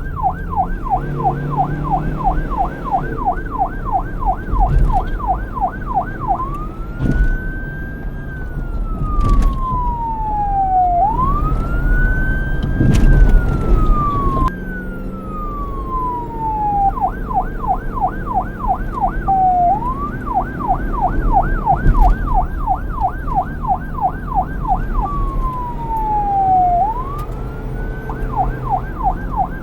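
Police car electronic siren switching back and forth between a fast yelp, about four up-and-down sweeps a second, and a slower wail that rises and falls over a few seconds. A low rumble of road traffic runs underneath.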